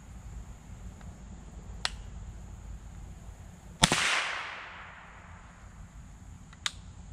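.22 LR rimfire rifle shot about four seconds in: a single sharp crack followed by about a second of echo fading away. Two fainter sharp clicks come before and after it.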